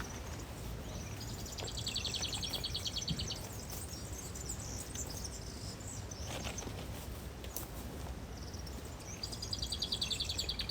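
A songbird sings the same phrase twice, about seven seconds apart. Each time a few high notes lead into a fast, even trill lasting nearly two seconds.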